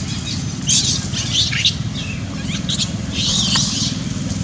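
A run of short, high-pitched animal calls, squeaks and chirps, some sliding down in pitch, with the longest call a little after three seconds in. Beneath them runs a steady low hum.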